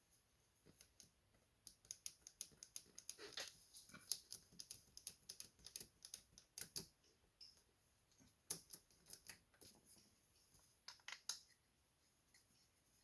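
Faint, irregular clicks and light taps, many in quick succession with a short lull near the middle, from small parts being handled during sprocket and case-saver work.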